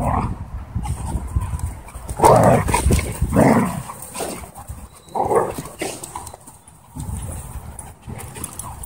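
Dogs barking while wrestling and play-fighting, with three or four loud barks between about two and five and a half seconds in.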